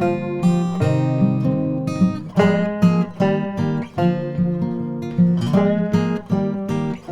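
Background music: a strummed acoustic guitar with picked notes, at a lively steady pace.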